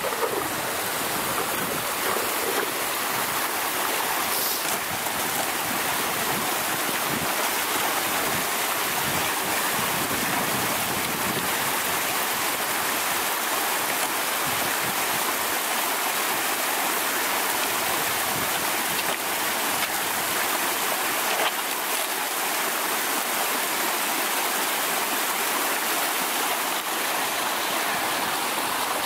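Shallow mountain brook rushing over rocks, a steady, even rush of water.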